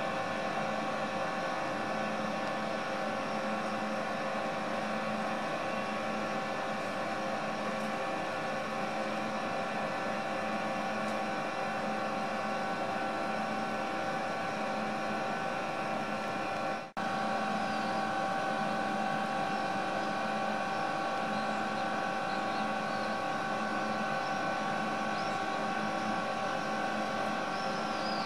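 Steady mechanical hum made of several held tones over a hiss, broken by a brief dropout about seventeen seconds in. Faint high chirps sound now and then in the last third.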